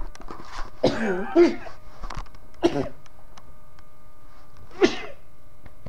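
A person coughing and clearing their throat a few times, over a steady electrical hum.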